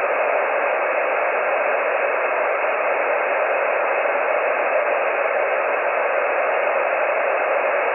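Steady hiss of band noise from a shortwave transceiver receiving the 20-metre amateur band in single sideband, with no station heard.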